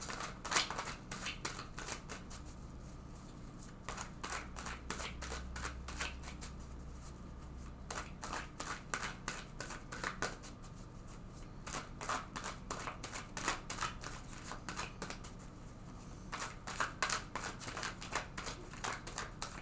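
A tarot deck being shuffled by hand: quick runs of crisp card clicks and riffles, in several bouts with short pauses between them.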